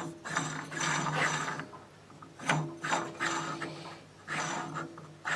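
Metal lathe's gear train running in short starts and stops, each about a second and a half of gear whir with a steady hum, during screw-cutting of a thread.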